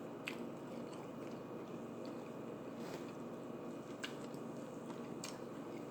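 A person chewing food with the mouth, with a few sharp, wet mouth clicks spread through.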